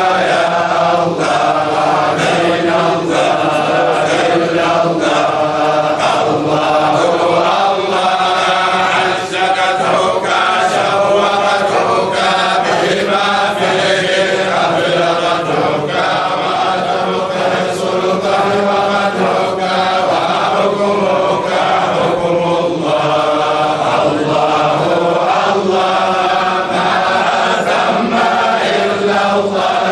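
Men's voices chanting an Arabic devotional chant (dhikr or qasida praising Allah) together in a steady, unbroken melody.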